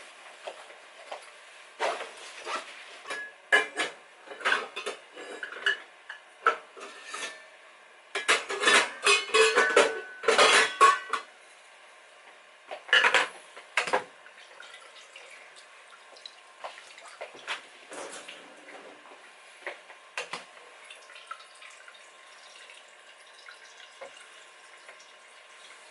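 Dishes and cutlery clinking and knocking against each other, with a dense run of clatter about eight to eleven seconds in and another brief burst around thirteen seconds, then only a few light taps.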